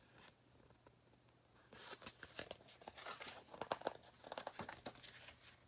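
Pages of a picture book rustling and crinkling as they are turned: a quick run of short, faint papery rustles starting about two seconds in.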